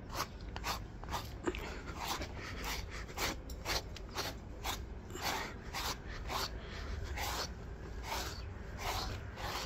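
A grooming comb drawn through a volkodav (Central Asian Shepherd dog)'s thick coat in short, scratchy strokes, about two or three a second, combing out loose, dirty hair.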